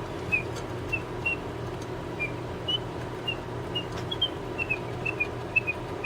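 Emil Schmeckenbecher singing bird cage automaton's bellows-driven whistle chirping its song: short high whistled chirps, about two or three a second and coming faster near the end, over a steady low hum.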